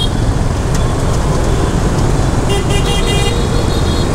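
Busy motorbike and car traffic heard from a moving motorbike, a steady low rumble, with a vehicle horn beeping several quick times about two and a half seconds in.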